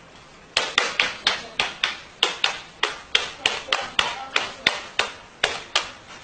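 A rapid, even series of sharp taps, about three a second, starting about half a second in.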